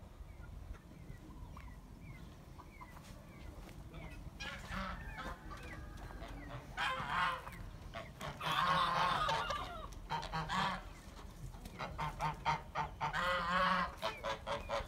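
Domestic white geese honking: faint, high rising peeps in the first few seconds, then a run of loud honks from about four seconds in, loudest around the middle and again near the end.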